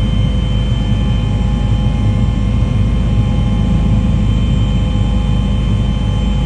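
Loud, steady engine drone: a dense low rumble with a steady whine on top.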